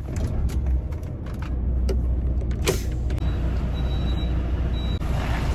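Lorry diesel engine running, heard inside the cab, its low rumble growing stronger about a second and a half in as the truck moves off. A few short clicks sound in the first three seconds.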